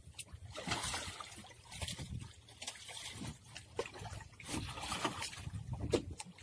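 Water lapping and sloshing around a drifting fibreglass fishing boat, in irregular splashes.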